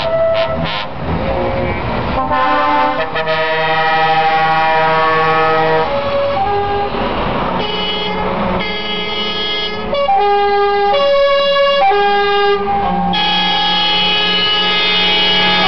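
Truck air horns sounding in long held notes that change pitch every second or two, several notes in succession, ending in a long loud chord.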